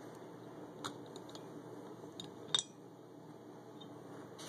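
A few short clinks and knocks of small glass tasting glasses being handled, the loudest about two and a half seconds in with a brief ring.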